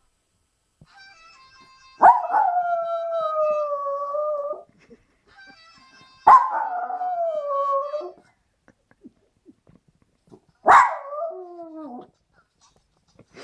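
Jack Russell terrier howling three times, each howl starting sharply and sliding down in pitch, the last one shorter. Faint phone ringtone tones play just before the first two howls.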